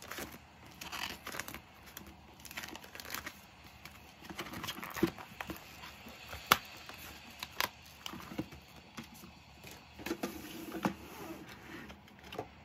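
Clear plastic binder sleeves and plastic-packaged stationery rustling and crinkling as they are handled, with a few sharp clicks and taps, the loudest a little past halfway.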